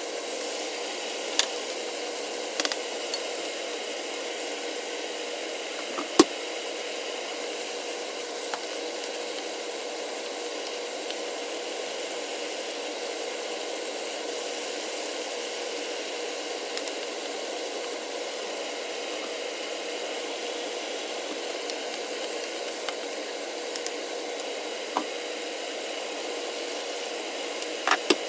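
Webfoot octopus and pork belly sizzling steadily as they stir-fry in a nonstick pan, with a steady hum underneath. A few sharp clacks of a wooden spatula against the pan break through, the loudest about six seconds in and several more near the end.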